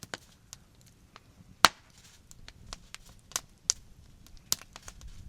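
Campfire wood crackling: sharp, irregular pops, one much louder than the rest about one and a half seconds in.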